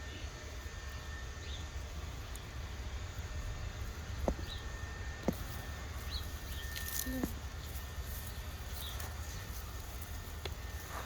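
Outdoor garden ambience with faint bird chirps every second or two over a steady low rumble, and two sharp clicks about four and five seconds in.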